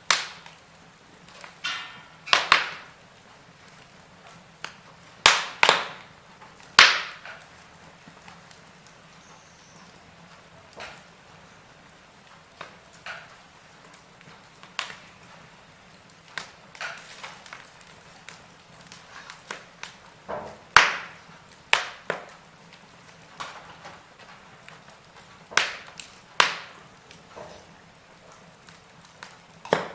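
Wood fire in a fireplace crackling: irregular sharp pops and snaps, a few of them loud, over a soft steady hiss.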